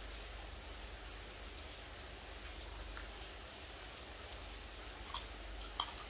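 Steady hiss of rain falling, with a couple of short sharp clicks near the end.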